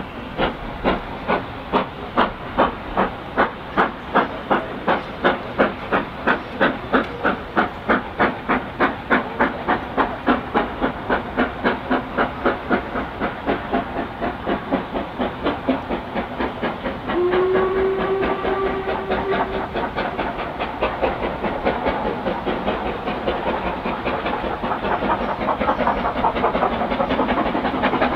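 LMS Stanier Black Five 4-6-0 steam locomotive pulling away from a stand, its two-cylinder exhaust beats slow and evenly spaced at first and steadily quickening as it gathers speed. A little past the middle a single steady whistle note sounds for about two seconds.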